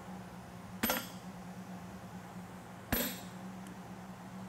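Two blows of a farrier's hammer on a red-hot steel tong jaw lying on the anvil, about two seconds apart, each a sharp metallic strike with a short ring; the blows set a tight corner in the jaw of a pair of hot fitting tongs. A steady low hum runs underneath.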